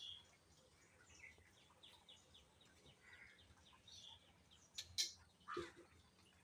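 Budgerigars chirping and chattering faintly in quick, high calls, with a sharp click about five seconds in.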